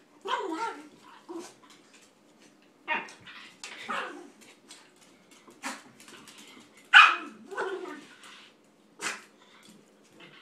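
Dog barks and yips from a German Shepherd puppy and a toy poodle at play, coming in short separate bursts with the loudest about two-thirds of the way through.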